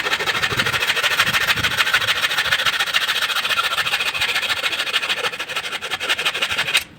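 Electric woodworking power tool running steadily under load with a fast, even chatter, cutting off abruptly near the end.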